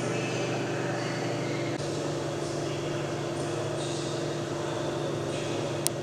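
Steady mechanical hum of machinery or ventilation in an engine shed, holding a few low tones, with one sharp click near the end.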